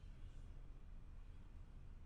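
Faint, steady brown noise: an even low rumble with little high end and no distinct events.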